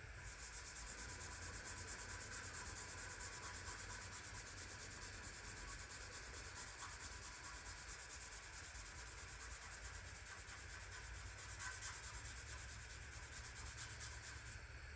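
Faint, steady rubbing with a fine, rapid rasp, typical of abrasive work such as sanding or scrubbing. It starts abruptly and stops shortly before the end.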